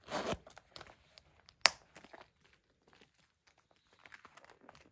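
Small leather purses being handled: a metal zip is pulled briefly at the start, a single sharp click comes about a second and a half in, then soft rustling of leather.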